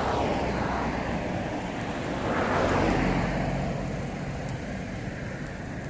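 Street traffic noise: a car passes, swelling and fading, loudest about two and a half seconds in, over a steady low engine hum.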